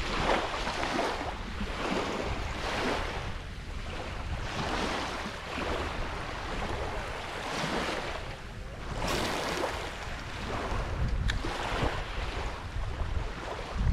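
Small waves lapping onto a sandy beach, washing in and out about once a second, with a low rumble of wind on the microphone.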